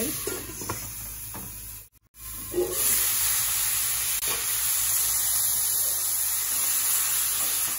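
Button mushrooms and chopped onion frying in oil in a nonstick wok, a steady sizzling hiss. The sound drops out briefly about two seconds in, then the sizzle carries on evenly.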